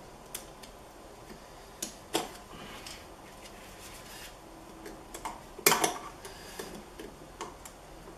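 Scattered clicks and light knocks of small metal engine parts and hand tools being handled on a workbench, the loudest about five and a half seconds in.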